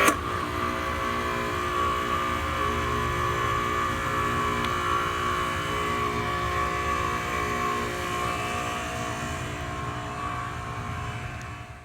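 Ryobi 2300 psi electric pressure washer running steadily: an electric motor and pump hum and whine at a fixed pitch over a hiss of spray. A sharp click comes right at the start.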